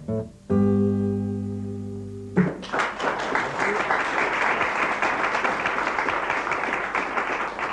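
Acoustic guitar plays a few last notes and a final chord that rings for about two seconds, then an audience applauds for about five seconds.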